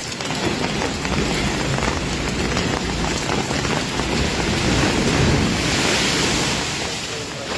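Sea waves washing up the shore at high tide, with wind buffeting the microphone; a wave swells loudest about five to six seconds in.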